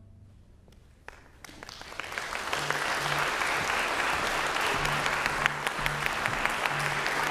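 Concert audience applause breaks out about a second in and quickly builds to full, steady clapping, greeting the end of a tango piece for cello ensemble.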